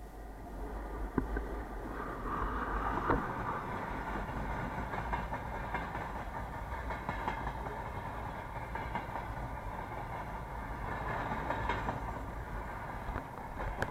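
Freight train hauled by a 2ES4K electric locomotive rolling past, a steady rolling noise with scattered sharp wheel clicks. It grows louder over the first two seconds, then holds steady.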